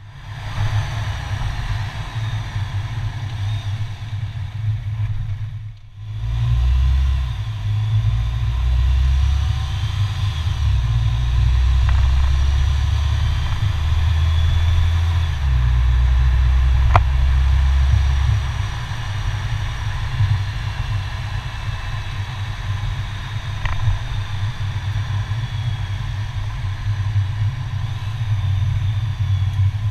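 Car on the move heard from a camera mounted outside at the front grille: a heavy, unsteady low rumble of wind on the microphone with road and engine noise underneath. It drops out briefly about six seconds in, and two faint ticks come later.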